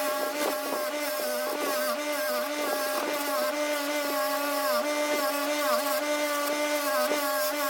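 Small high-speed electric motor whining steadily, its pitch sagging briefly again and again as if loaded, with scratchy grinding contact noise over it.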